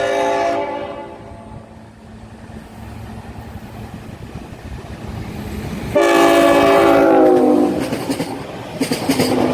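Locomotive air horn sounding a chord that cuts off about half a second in. The train's noise then builds, and the horn blows again about six seconds in, its pitch dropping as the train passes, followed by a run of clicks from the wheels on the rails.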